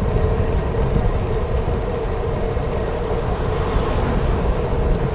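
Wind rumbling on the microphone and road noise during a bicycle ride, with a steady mid-pitched hum underneath.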